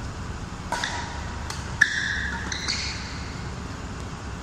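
Badminton rally: sharp racket strikes on the shuttlecock and short high squeaks of court shoes, a cluster of them from under a second to about three seconds in. The loudest crack comes near two seconds in and is followed by a squeal lasting over half a second.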